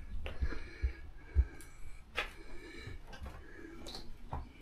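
Footsteps on bare wooden floorboards: a few soft low thumps in the first second and a half, then scattered light clicks and knocks.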